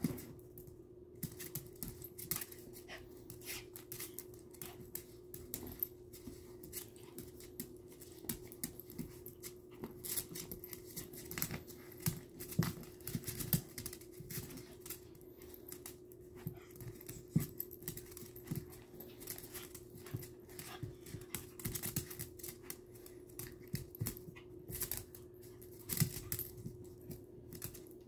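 Two small dogs play-fighting on a hard plank floor: rapid, irregular clicking and scrabbling of claws, with panting.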